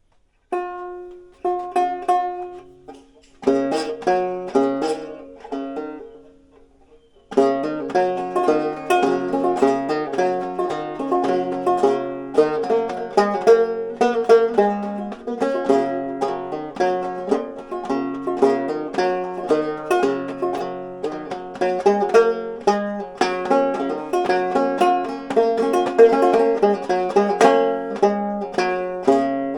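Stromberg Cupophone five-string banjo being played: a few separate plucked notes and strums in the first seven seconds, then a steady, rhythmic tune picked without a break from about seven seconds in.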